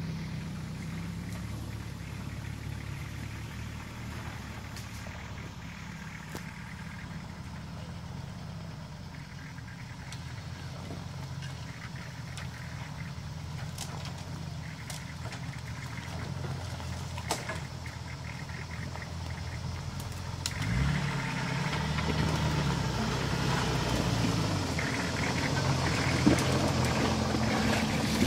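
A 4x4 off-road SUV's engine running at low revs as it crawls over rough ground, with a few faint clicks. About two-thirds of the way through the engine revs up and grows louder as the vehicle comes close.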